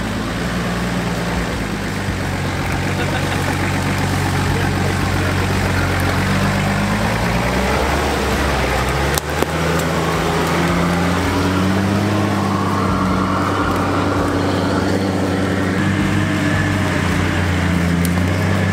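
Off-road 4x4 engines working at low speed under load while climbing, the engine note rising and falling with the throttle. About nine seconds in, the sound breaks off abruptly and another 4x4's engine carries on in the same way.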